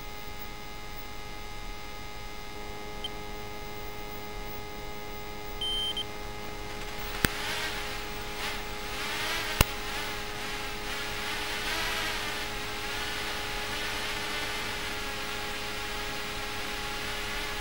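Steady electrical hum made of several held tones, the kind of hum and hiss carried on an analog FPV drone video recording. About seven seconds in, two sharp clicks come a couple of seconds apart. From there a hiss with wavering tones joins the hum and stays to the end.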